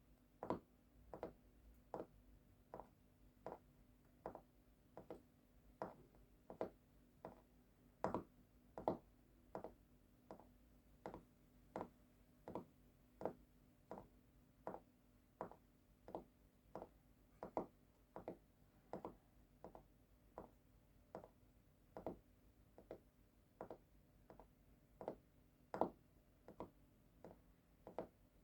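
Steady series of short, sharp taps or clicks, a little faster than one a second and evenly spaced, over a faint low hum.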